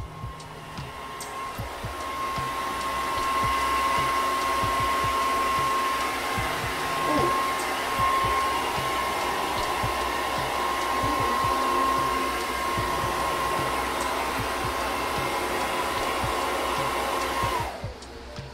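Hand-held blow dryer running steadily with a whine over its rushing air. It is switched off near the end, and its pitch drops as it winds down.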